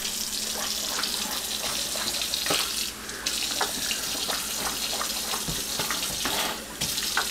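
Kitchen sink faucet running in a steady stream as a man rinses his mouth under it, water splashing into the basin. The hiss of the stream drops away briefly twice, about three seconds in and again near the end.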